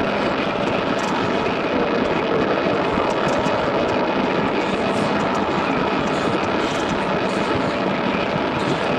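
Dense, unbroken wall of droning noise from a noise music recording, with no beat, melody or voice.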